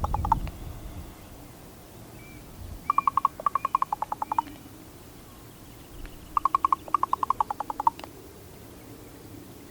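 Female raven giving rapid clicking calls: two rattling bouts of about eight or nine hollow clicks a second, each lasting about a second and a half, with a faint short high note between them.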